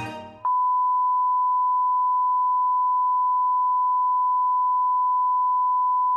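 Broadcast line-up test tone: a single steady, unwavering beep sent with colour bars, the sign that the channel's programme feed has dropped off air. It cuts in about half a second in, right after the advert music stops abruptly.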